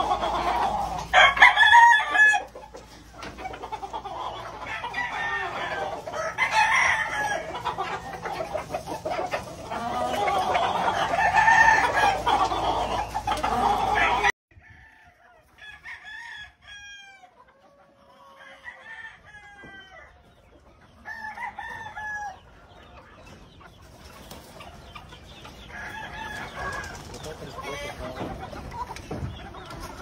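Gamefowl roosters crowing, with hens clucking. For the first half many birds call over one another loudly. About halfway in it drops suddenly to fewer, fainter single crows.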